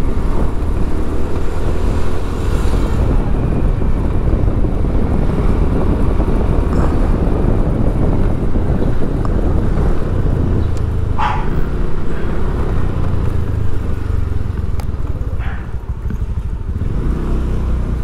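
Road vehicle noise with a heavy, steady low rumble. A short higher tone sounds about eleven seconds in.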